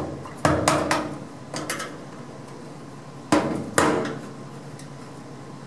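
Hammer strikes on metal at the top of a removed steel fuel tank: about seven sharp, ringing taps in three short groups, the last two the loudest, about three and a half seconds in.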